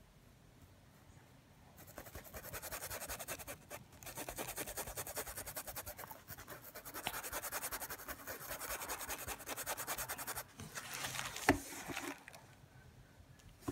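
A small flat paintbrush scrubbing rapidly back and forth over taut painted fabric, blending acrylic shading into the cloth. It starts about two seconds in and stops briefly a few times, with one sharp tap near the end.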